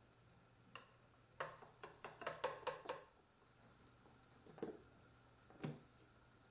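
A stirrer taps and clinks against the side of a yogurt-maker container in a quick run of strokes while milk is stirred. Then come two soft knocks as a plastic lid is fitted and pressed down onto the container.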